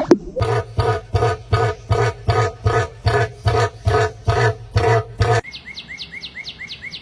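A bird calling in a fast, even series of loud, harsh notes, about three a second. It cuts off abruptly about five seconds in and gives way to a quieter, rapid run of thin, high, down-slurred chirps from another bird.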